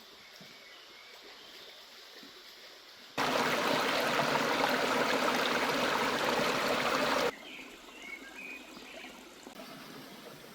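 Loud, steady rushing water of a stream, which cuts in abruptly about three seconds in and cuts out just as abruptly about four seconds later. Before and after it there is only faint outdoor background with a few short chirps.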